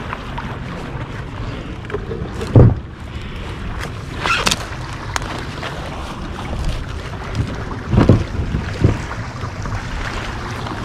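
Wind buffeting the microphone, with a few thumps and a brief scrape as driftwood and a kayak are handled at the water's edge. The loudest thump comes about two and a half seconds in.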